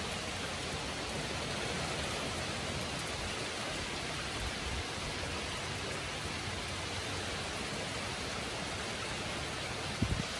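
Steady rain falling on trees and leaves, an even hiss with no breaks. A brief low thump comes near the end.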